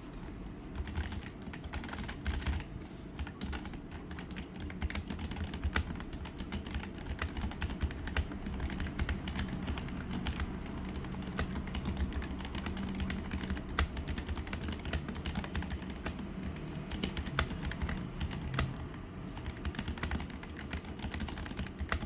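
Continuous fast typing on the NYK Nemesis Saber MKN-02 mechanical keyboard fitted with Outemu red switches, which are linear: a rapid, uneven stream of key presses and keycap clacks with no click mechanism.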